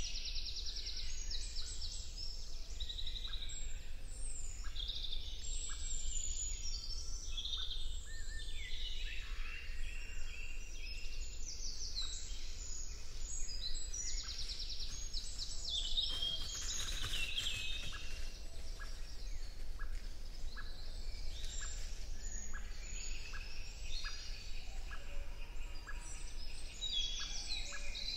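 Woodland birdsong: several songbirds singing over one another with trills and whistles. A short note repeats about once a second in the second half, over a steady low rumble.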